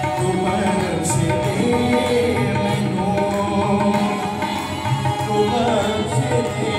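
Harmonium playing the melody of a devotional geet in held reedy chords, with a hand-drum beat underneath.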